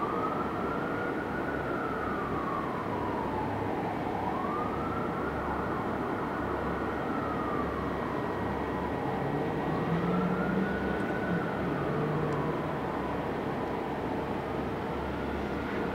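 Fire engine siren on a slow wail, rising and falling about every four seconds, over a steady low rumble.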